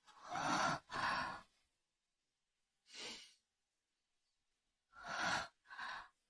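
A person's breathy sighs and exhalations: two just after the start, one about three seconds in, and two more near the end.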